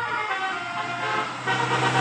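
Bus telolet basuri horn playing a tune of stepped musical tones over a running engine, with engine and road noise swelling about a second and a half in.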